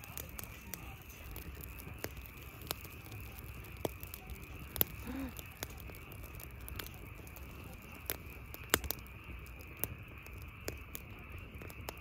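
Campfire crackling in a metal fire pit, with irregular sharp pops scattered through, two of them louder than the rest.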